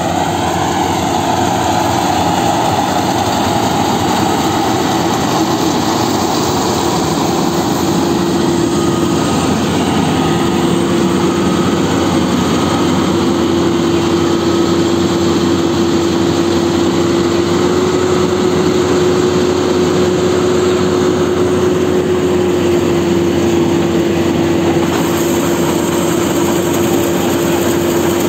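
GAM Ruilong tracked combine harvester running steadily while harvesting rice, a loud continuous engine drone with a steady whine held over it.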